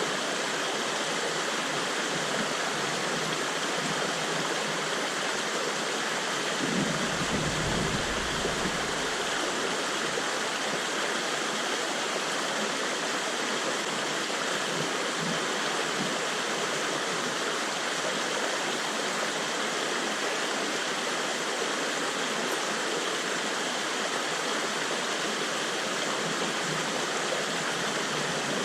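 Steady rush of flowing river water, with a brief low rumble about seven seconds in.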